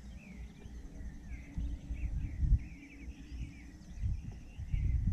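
Several birds chirping and calling in quick short notes, over a low, uneven rumble with a few dull bumps and a faint steady high insect-like whine.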